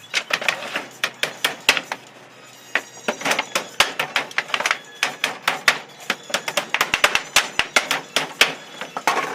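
Rapid hammer blows driving nails into a wooden pallet, several sharp knocks a second with a short pause about two seconds in.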